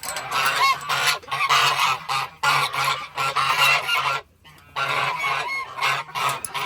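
A flock of domestic geese honking, many overlapping calls, with a brief lull about four seconds in.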